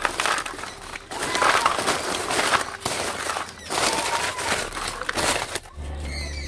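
Crisp fried onion fritters (piyaju) crunching and crackling in a series of loud bursts. About five and a half seconds in this gives way to a low steady hum.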